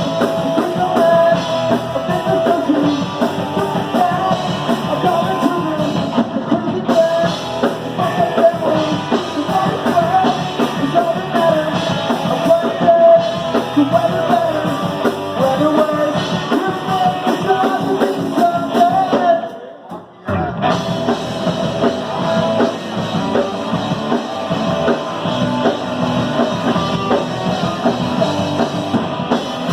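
Live rock band playing loud, with drum kit, electric guitar and singing. The band stops briefly about twenty seconds in, then comes straight back in.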